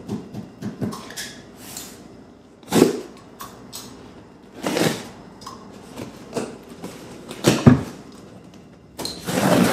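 Packing tape being cut and pulled off a cardboard shipping box, in about four short scratchy tearing sounds.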